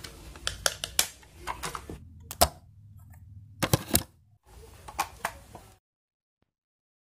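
Plastic clicks, taps and snaps from handling a CD jewel case and a Sony Discman D-153 portable CD player: a quick run of clicks at first, two sharp snaps about four seconds in, and a few more clicks shortly after.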